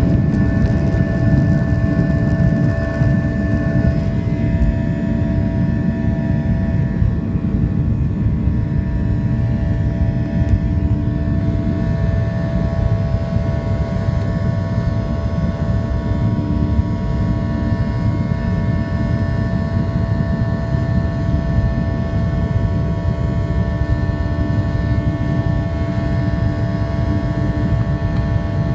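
Jet airliner engines running steadily, heard from inside the passenger cabin: a constant low rumble with a few steady humming tones over it.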